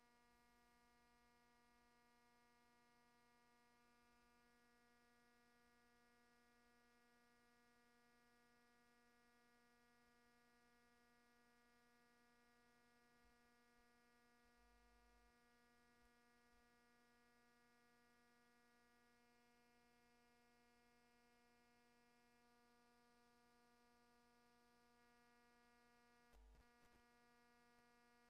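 Near silence with a faint, steady electrical hum, and a faint click near the end.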